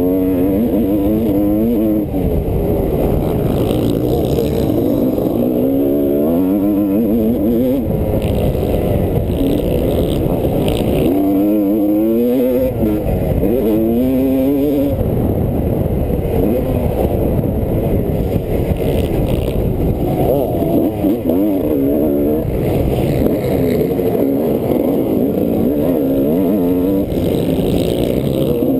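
Motocross bike engine heard close up from the bike itself, revving hard and falling back over and over as the rider accelerates, shifts and rolls off through the track; the pitch climbs and drops repeatedly.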